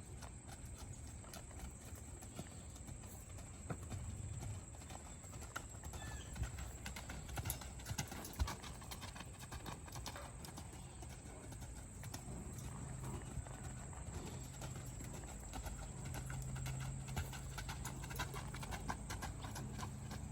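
Horse hooves clip-clopping in an irregular run of light knocks.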